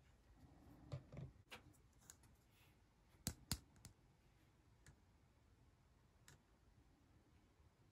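Faint clicks and taps of hard plastic toy tea set pieces being handled and set down, with two sharp clicks close together about three and a half seconds in.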